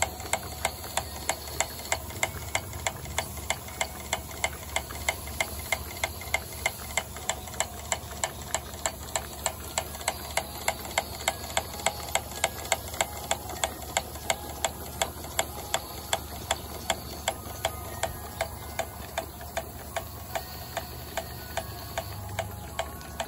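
Model Worthington steam feed pump by Coles Power Models running, clacking steadily about three times a second as it pumps feed water into the boiler, over a low steady rumble.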